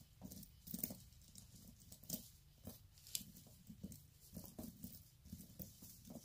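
Faint, irregular light clicks and taps of a rhinestone statement necklace's metal chain and settings being handled.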